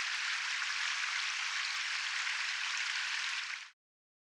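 A steady, bright hiss like rain or blowing snow, with no distinct drops, knocks or pitch, which fades out and stops about three and a half seconds in.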